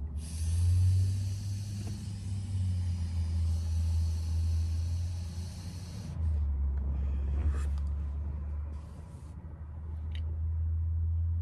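A long, hard draw on a disposable vape pen: a hissing inhale for about six seconds that cuts off sharply, followed by a short breathy exhale. All of it sits over a steady low rumble inside the car.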